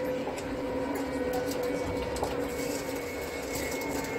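Nottingham tram running, heard from inside just behind the driver's cab: a steady electric hum with a few constant tones over a low rumble, and a fainter high whine joining about halfway.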